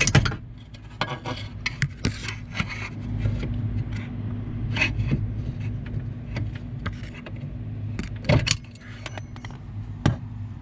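Metal clicks, scrapes and rattles of a screwdriver working the small retaining clip off the brake pedal pin under the dashboard, with sharp clicks at the start, about eight seconds in and near the end, over a steady low hum.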